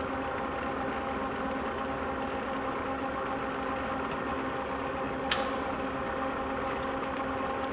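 LeBlond 40-inch hollow spindle engine lathe running steadily under power, with the half nut engaged on the leadscrew so the carriage feeds for thread cutting: an even machine hum with a steady tone. A single sharp click about five seconds in.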